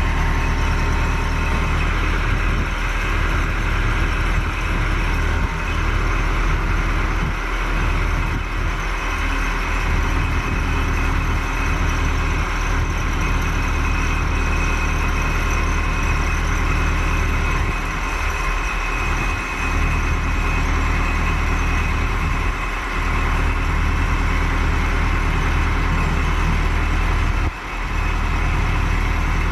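Diesel engine of a Massive 390 4WD loader-backhoe tractor (85 hp, 4.1 L) idling steadily, with a brief dip near the end.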